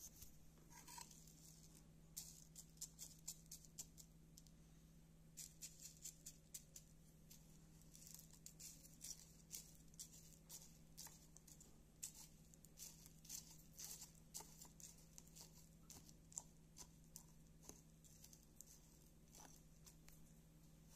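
A fork stirring crispy puffed rice into dog food in a stainless steel bowl: faint, irregular light clicks and scrapes.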